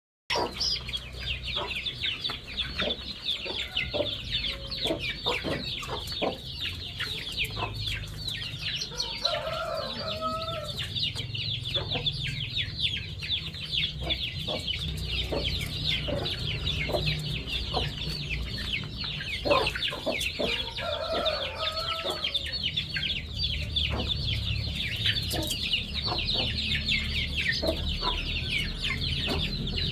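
A brood of chicks peeping constantly in a dense chorus of high, short chirps, with a hen clucking twice, about a third and two thirds of the way through.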